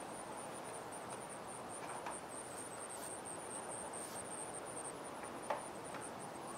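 Insects chirping in a rapid, steady, high-pitched pulse over quiet outdoor background, with a few faint knocks and one sharp click about two-thirds of the way through from handling the leather bellows on its wooden stand.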